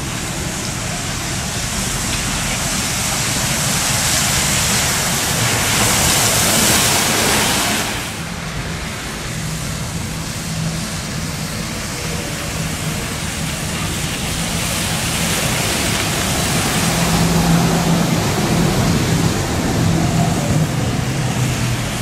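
City buses driving by on a wet road. The hiss of tyres on wet pavement builds for the first eight seconds and stops abruptly. After that a bus engine's steady low hum takes over and grows louder as another bus approaches near the end.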